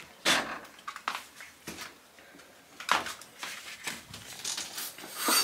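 Irregular rustling and crinkling with scattered sharp clicks and scrapes, the sound of things being handled close by; it goes quiet for a moment about two seconds in, then gets busier toward the end.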